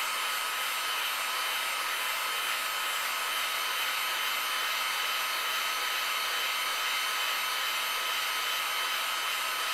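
Heat gun blowing steadily, with a faint constant whine over the rush of air, as it heats a PS3 motherboard's GPU and CPU to reflow their solder.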